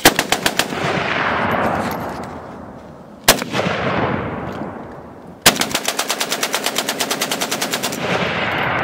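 AK-pattern pistol firing rapidly. A quick string of about half a dozen shots comes first, then a single shot a little over three seconds in. From about five and a half seconds in comes a long even string of about two dozen shots at roughly ten a second. Each string trails off in a long echo.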